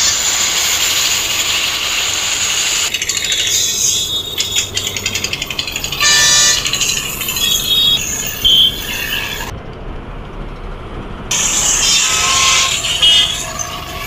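Highway traffic with lorries driving past, and truck horns sounding in short pitched blasts about six seconds in and again near the end; a rapid clicking rattle runs for a few seconds before the first horn.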